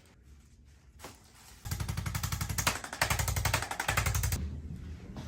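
Handheld electric percussive device, a massage gun or motorised adjusting instrument, hammering rapidly against the body in three runs with short breaks, stopping about a second before the end.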